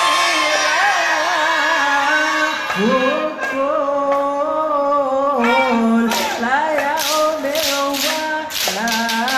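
A group of men singing sholawat together, a drawn-out, ornamented Arabic devotional melody in the Hadrah Ishari style. About six seconds in, sharp hand claps join at a steady beat of roughly three a second.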